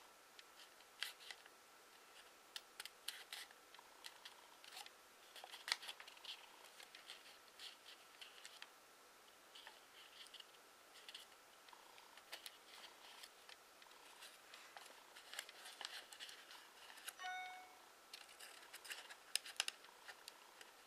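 Sheet of origami paper being folded and creased by hand: faint, irregular crinkling and crackling with scattered sharp clicks as the folds are pressed.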